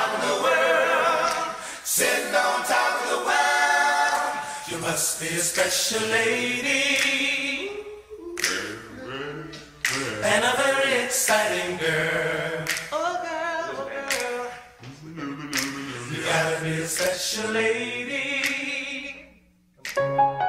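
Several voices singing a cappella in harmony, with no instruments, in phrases with short dips between them. The singing stops shortly before the end, and a piano comes in.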